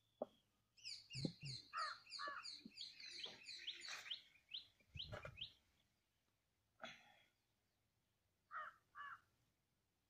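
Outdoor birds calling faintly: a fast run of short, high, falling chirps over the first few seconds, then a pair of short lower calls near the end. A couple of soft low thuds are mixed in.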